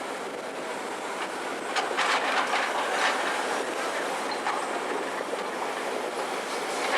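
Tata Hitachi excavator working: a steady mechanical clatter with metallic clanks and squeals, loudest about two and three seconds in.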